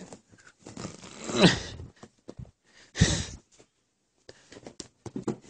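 House cat on a bed giving a falling cry, then a short harsh noisy burst about three seconds in, followed by light rustling and scratching on the bedding.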